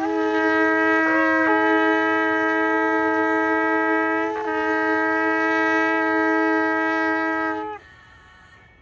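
A ram's-horn shofar blown in one long, steady blast of nearly eight seconds, with a brief upward crack in pitch about a second in and a short waver near the middle before it cuts off.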